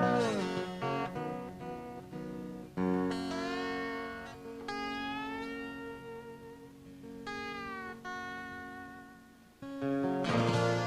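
Solo acoustic guitar playing a slow blues intro live, single ringing notes and chords whose pitch slides up and down between notes.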